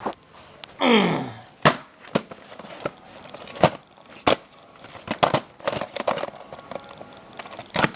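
A VHS cassette and its plastic case being handled. A short squeak falls in pitch about a second in, then comes a run of sharp plastic clicks and taps.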